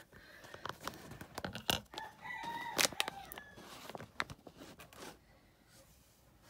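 A rooster crows once in the background: a stepped call of about a second near the middle. Around it, sharp clicks and crinkles of a cellophane bag being handled.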